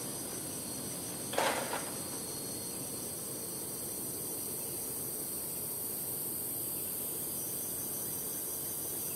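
Steady high insect chorus, with a brief louder sound about a second and a half in.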